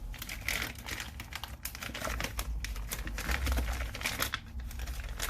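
New hand tools and their packaging being handled and unpacked, a busy run of light clicks, clinks and rustles.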